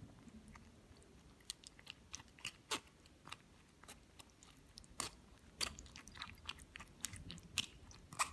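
Metal spoon pressing and scraping soaked tamarind pulp against a stainless-steel mesh strainer: quiet, irregular wet squelches and small clicks of the spoon on the mesh.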